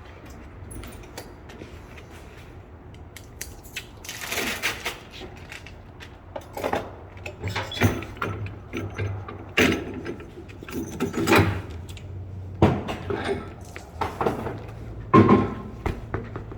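Metal tools and parts clanking and knocking during tire-shop work, several sharp clanks a second or two apart, with a longer rushing, rattling stretch about four seconds in.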